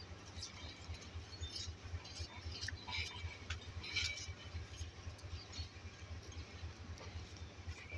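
Pakistan Railways passenger coaches rolling slowly along the track: a low, steady rumble with scattered light metallic clinks from wheels and couplings.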